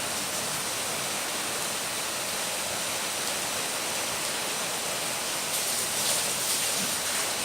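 Heavy rain falling steadily, an even hiss of water, with a few brief louder splashy patches in the last couple of seconds.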